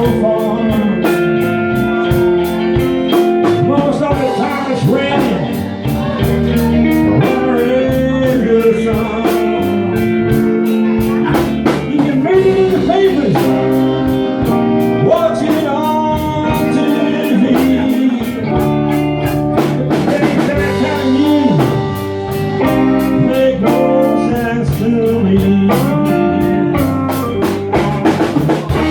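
Live blues band playing: electric guitar with bending notes over bass and a steady drum kit beat.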